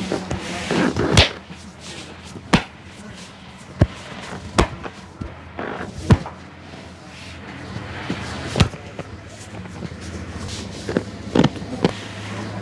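Sharp hand slaps of a massage on the customer's head and body: about ten strikes at uneven intervals, a quick pair about a second in and a run of three near the end.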